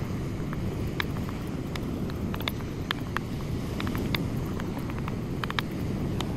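Steady low wind rumble on the microphone, with irregular sharp taps of a knife on a cutting board, roughly two a second, during food prep.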